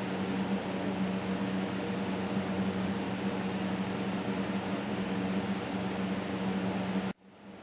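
Steady hum and hiss of a large ceiling fan running. The sound cuts out suddenly near the end and then swells back.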